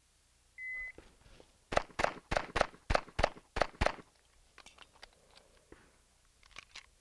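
A shot timer's start beep, then a fast string of about eight shots from a Springfield Armory XDM 5.25 9mm pistol, roughly three a second, about a second after the beep. A few fainter clicks and knocks follow.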